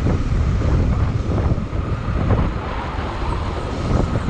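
Motorcycle engine running under way, with wind noise on the microphone.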